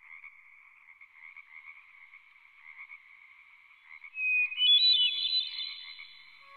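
Ambient synthesizer music: a fluttering, trilling texture, then a quick rising run of bright held notes about four seconds in.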